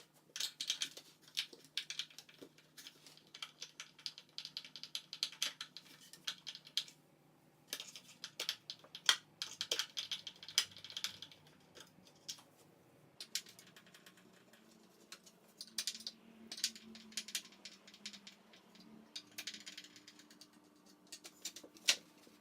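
A hand ratchet clicking in quick runs of several seconds each, with short pauses between them.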